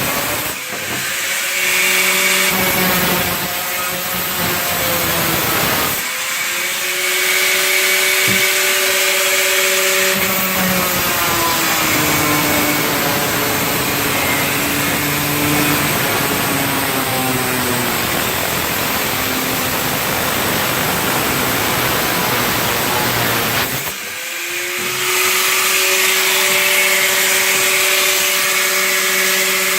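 Handheld grinder-type power tool cutting sheet metal: a loud steady whine and hiss. The whine sags in pitch as the tool bogs under load from about twelve to eighteen seconds in. It eases off briefly three times, about half a second, six and twenty-four seconds in.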